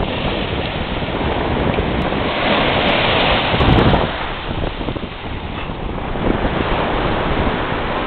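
Small surf breaking and washing up the beach, with wind buffeting the microphone. The wash swells to its loudest about three to four seconds in, then drops away.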